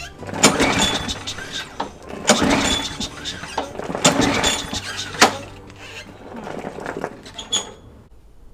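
Lawnmower engine being pull-started: the recoil starter cord is yanked three times in quick succession, followed by a few weaker scraping sounds. The engine does not catch, with the carburetor's bottom adjustment screw still tightened all the way down.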